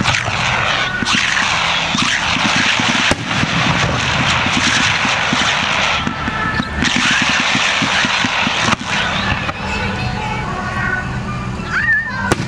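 Fireworks display: a dense crackling hiss of bursting stars, with a few sharp shell bursts about three seconds apart at first and again near the end, over music playing through loudspeakers.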